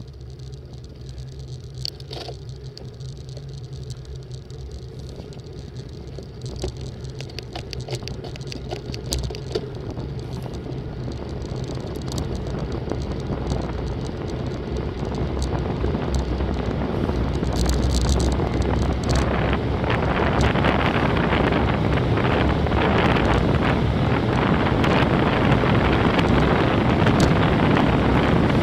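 Wind rushing over a bike-mounted camera's microphone, with tyre noise on asphalt, growing steadily louder as a road bicycle gathers speed on a downhill descent. Scattered light clicks and rattles run through it.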